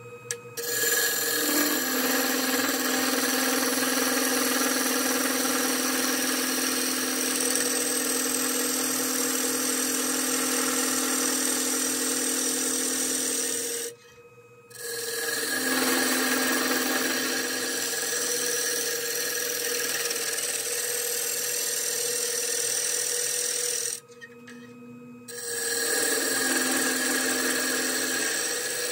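A turning tool cutting into an ash bowl blank spinning on a wood lathe, a steady shearing sound over the lathe's hum. The cut stops briefly about halfway through and again near the end while the hum carries on, then resumes.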